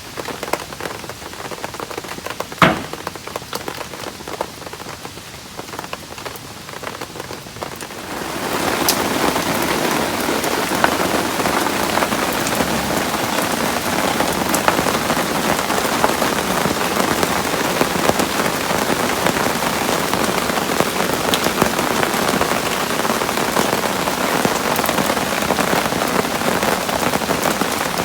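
Heavy rain on a canvas tent, with scattered small knocks and one sharp knock about two and a half seconds in. About eight seconds in, a much louder, dense, steady hiss sets in and holds.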